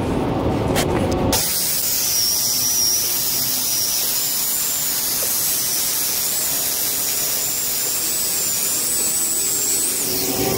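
Handheld circular saw with a DeWalt diamond blade cutting through asphalt, a steady gritty hiss under a high whine that wavers in pitch as the blade is loaded. The cut gets going about a second and a half in.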